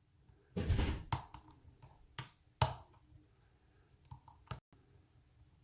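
Lock pick and tension wrench working inside a padlock's keyway during single-pin picking: a short metal scrape, then a handful of sharp clicks and taps, spaced irregularly.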